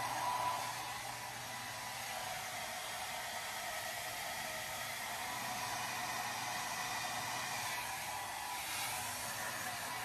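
Handheld hair dryer running steadily while drying hair: rushing air with a steady whine in it.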